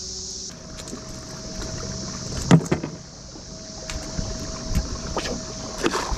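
Kayak on moving river water: a steady rush with scattered knocks and clicks, the loudest a single knock about two and a half seconds in and a cluster near the end.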